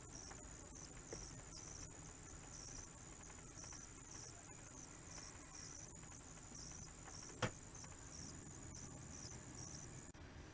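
Faint low rumble of a car idling in slow traffic, heard from inside the car, with a high-pitched chirping repeating about twice a second and a single sharp click about seven and a half seconds in.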